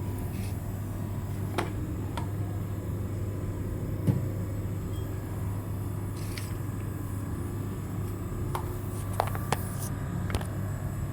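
LG inverter air conditioner unit running with a steady low hum, its refrigerant charge low after a line leak. Scattered light clicks and taps of hose and gauge fittings being handled sound over it.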